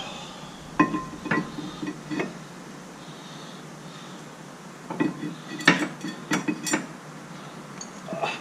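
Metal tools and parts clinking and knocking during brake and wheel work: a few sharp clinks about a second in, a quicker run of them about five seconds in, and one more near the end.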